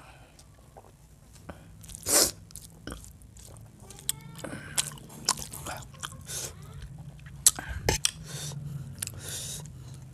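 Close-up mouth sounds of eating chicken curry and rice by hand: wet chewing and lip-smacking, with scattered sharp smacks. The loudest come about two seconds in and again just before eight seconds.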